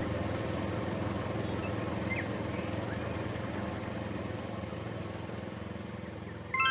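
A steady low mechanical hum that slowly fades, then a short bright chime of several ringing tones near the end.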